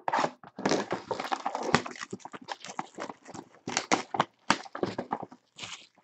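Trading-card box packaging being torn open and handled: a rapid, irregular run of crinkles, snaps and tearing from the wrapper and cardboard.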